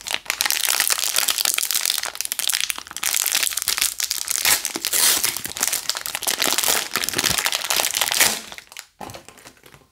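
Clear plastic wrapper on a block of fondant being torn open and peeled off by hand, crinkling continuously and stopping a little more than a second before the end.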